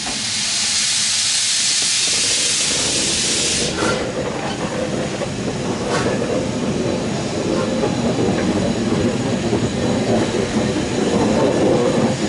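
LMS Stanier Class 5 4-6-0 'Black 5' steam locomotive: a loud steam hiss for about four seconds that cuts off suddenly, then the rumble of the engine rolling along the rails, growing louder as it comes closer, with a single click about six seconds in.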